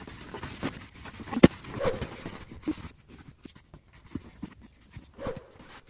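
Heavy canvas bedroll being rolled up and strapped by hand: the canvas rustles and rubs, and there is a scatter of small clicks, with one sharp knock about a second and a half in.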